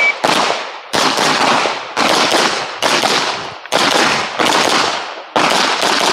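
Pistol shots, about eight spaced roughly a second apart, each with a long fading echo. Each follows the end of a shot timer's start beep.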